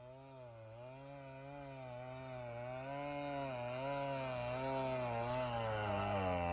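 Chainsaw engine running at part throttle, its pitch wavering up and down about twice a second and growing steadily louder.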